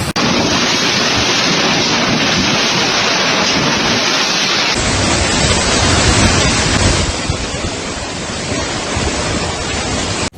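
Storm wind and rain rushing loudly over the microphone as a steady, even noise. There is an abrupt change about five seconds in, where a second clip of the same kind of noise begins.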